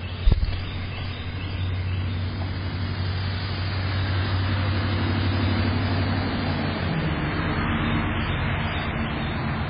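Steady motor-vehicle noise with a low hum, growing louder from about four seconds in. A single sharp knock sounds about a third of a second in.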